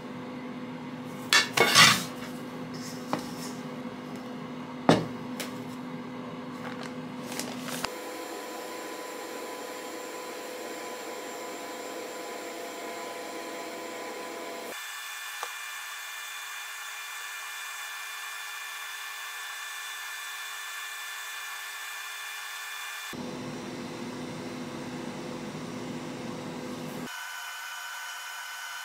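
A spatula knocking and scraping against a stainless steel mixing bowl while macaron batter is folded, with a few loud clanks in the first several seconds. After that there is only a steady hum with faint fixed tones, which changes character abruptly several times.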